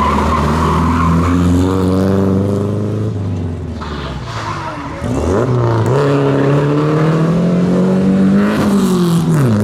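Classic rally car engine running at steady revs, then about five seconds in it accelerates hard, its pitch climbing through a gear, with a quick drop and rise near the end as it shifts up.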